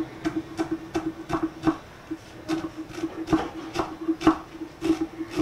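Chef's knife chopping fresh coriander leaves on a wooden chopping board: a run of quick knocks, about three a second, with a short pause about two seconds in, over a steady low hum.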